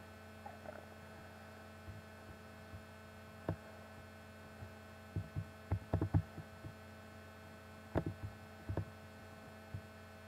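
Quiet, steady electrical mains hum, with scattered soft clicks and knocks, most of them bunched around the middle and again a little later.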